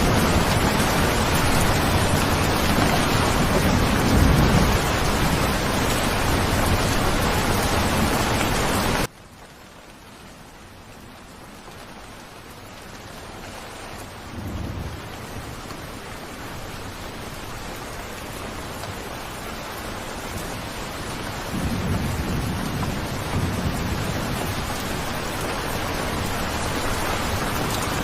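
Rain falling steadily. About nine seconds in it cuts abruptly to quieter rain that slowly grows louder, with low rumbles of thunder midway and again near the end.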